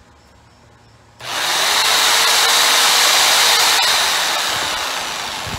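Corded jigsaw with a scroll blade cutting through half-inch MDF: the saw starts suddenly about a second in and runs steadily, fading a little toward the end.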